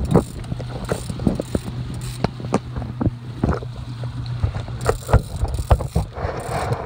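Fishing boat's engine running with a steady low hum, with irregular sharp knocks over it.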